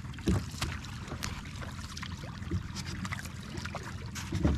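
Water sloshing against the hull of a small outrigger fishing boat over a steady low rumble, with light clicks and rustles as a gill net bundled on styrofoam floats is handled. There is a low thump about a third of a second in and another near the end.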